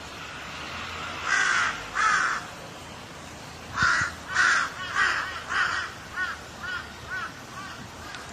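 Crow cawing: two loud caws, a pause of about a second and a half, then a run of about nine caws that grow fainter and shorter toward the end.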